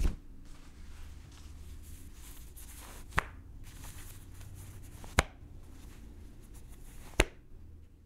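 Clothing rustling and moving, a continuous soft cloth rustle. It is broken by a sharp hit at the start and three more about every two seconds.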